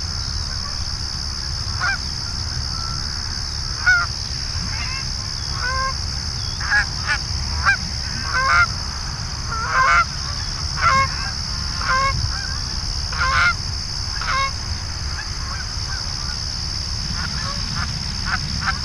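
Canada geese honking and clucking as a flock comes in to land: about fifteen short, separate calls, thickest in the middle and thinning toward the end.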